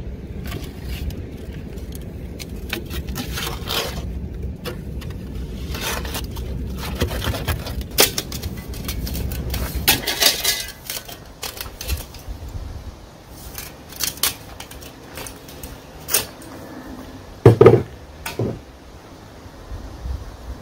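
A metal hand scoop scraping and clinking in stony soil over a low wind rumble; then scattered metal clinks and knocks as a metal pole and a small wheeled cart are handled, with a loud double clank about three-quarters through.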